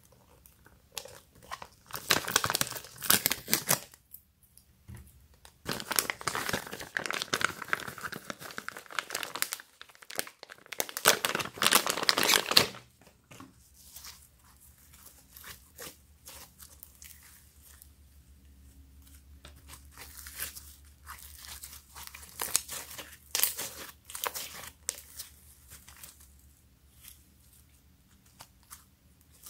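A plastic snack-style pouch crinkling and being torn open by hand in two loud bursts over the first half. Then softer scattered crackling and popping as fluffy white slime is stretched and squeezed by hand.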